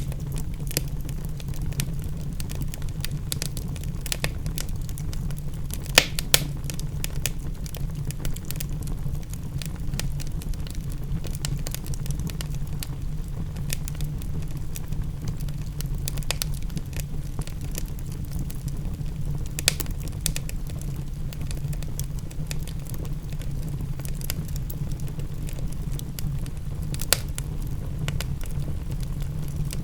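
Wood fire crackling, with irregular sharp pops and a few louder snaps, over a steady low rumble.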